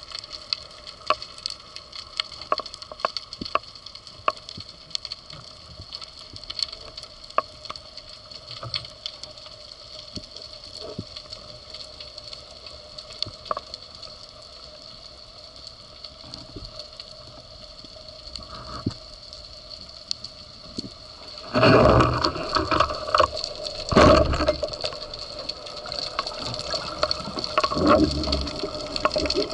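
Underwater ambience: scattered sharp clicks and crackles over a steady faint hum. About two-thirds of the way in, loud gushes of water and bubbles break in, in several surges.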